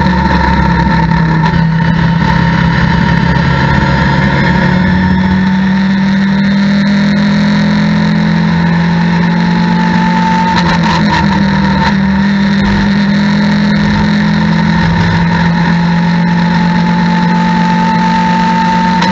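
Mitjet race car's engine heard from inside the cockpit, held in fourth gear at speed: a loud, steady drone that eases off slightly and then pulls back up. A high whine rides over it and climbs in pitch near the end.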